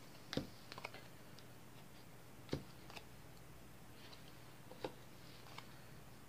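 Playing cards being handled: turned up from a hand-held deck and laid down on a wooden table, giving a handful of faint taps and snaps, the loudest just under half a second in and again about two and a half seconds in.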